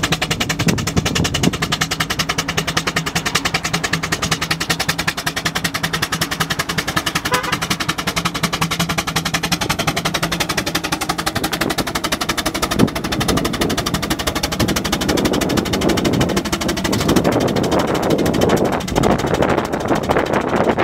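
Burrell steam road roller running along the road, its engine and gearing making a fast, even clatter. A rougher low rumble builds over the last few seconds.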